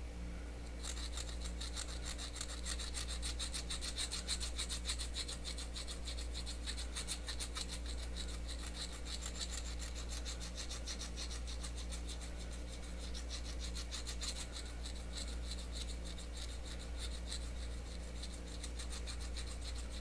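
Small needle file rasping back and forth across the rim of a metal can wheel in quick, steady strokes, smoothing its edge. The filing starts about a second in.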